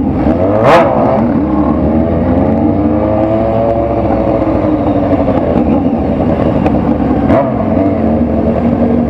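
Motorcycle engine running on the move, its pitch rising and falling as the throttle and speed change, with one sharp pop a little under a second in.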